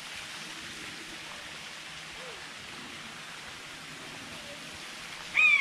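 A steady hiss, and near the end one loud, short animal call that rises briefly then falls in pitch.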